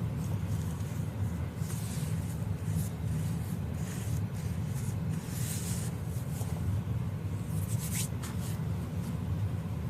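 Baby powder being shaken and rubbed onto a silicone baby doll: a few faint, soft swishes over a steady low hum.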